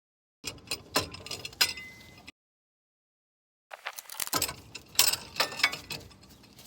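Metal clicks and clanks of a C-clamp being worked against a truck's front brake caliper, pressing the pistons back into their bores. They come in two stretches with a dead-silent cut between them.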